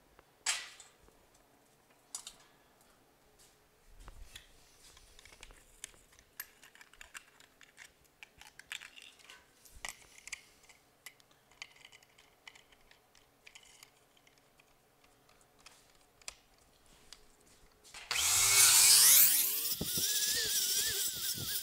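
Scattered clicks and clanks of a steel tube and clamp being handled, then, about 18 s in, an angle grinder spins up with a rising whine and its flap disc grinds loudly on the steel tube, taking welded-over seams flush.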